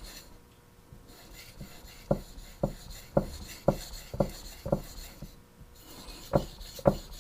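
Hand-forged petty knife stroked on a wet Japanese natural sharpening stone: short scrapes about twice a second, a brief pause, then two more strokes near the end.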